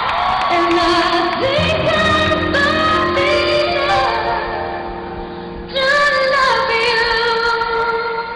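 Music with a woman singing a melodic line that slides between notes. About two-thirds through, the song fades, then cuts in suddenly louder.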